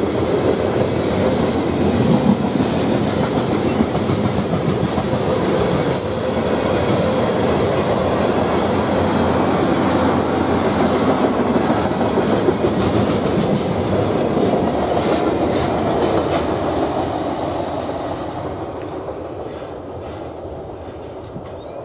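Freight train of tank cars rolling steadily past a grade crossing, with a dense rumble of wheels on rail and scattered clicks. The noise fades away over the last few seconds as the end of the train passes and moves off.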